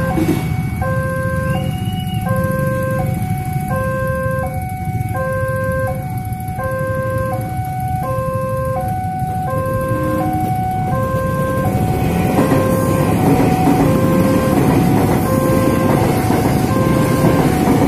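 Railway level-crossing warning alarm ringing: an electronic two-note chime that alternates between a lower and a higher note about every 0.7 s, over idling motorcycle engines. From about twelve seconds in, the low rumble of an electric commuter train pulling through the crossing grows under the chime.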